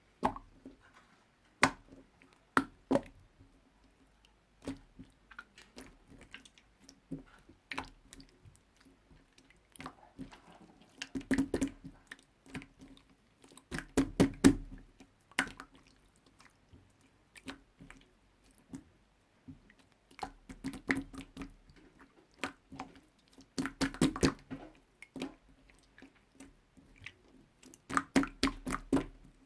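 Slime being squished and pressed by hand, giving irregular bursts of wet clicking and popping crackles separated by quieter pauses.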